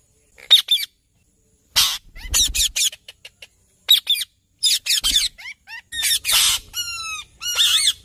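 Rose-ringed (Indian ringneck) parakeets squawking and screeching in short, shrill calls, many of them in quick runs, with one call near the end falling in pitch.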